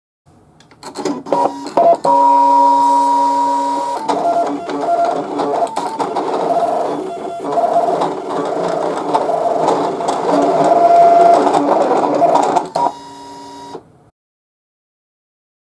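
Brother ScanNCut electronic cutting machine cutting vinyl: its motors whir in steady tones that keep changing pitch as the blade carriage and mat move back and forth. The sound stops shortly before the end as the cut finishes.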